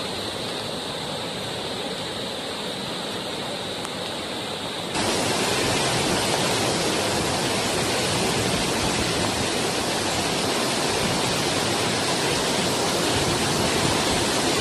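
Storm floodwater rushing in a fast torrent through a flooded street, a steady rushing noise that gets louder about five seconds in.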